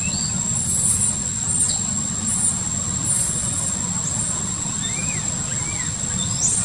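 Outdoor ambience: a steady low rumble carries throughout, with a constant high-pitched insect drone over it. Short high chirps come every second or so in the first half, and two short rising-and-falling calls come about five seconds in.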